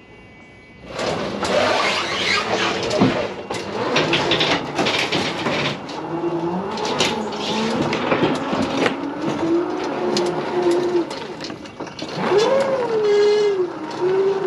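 Electric drive motors of a Toro GrandStand Revolution battery stand-on mower whining as it drives down off a trailer ramp, the whine wavering up and down in pitch. Repeated knocks and rattles come from the machine and the ramp throughout.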